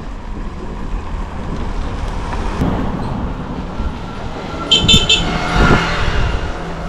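Wind and road noise with a motor vehicle going by, swelling to its loudest about five and a half seconds in. Just before that comes a quick high ringing of about three short strokes.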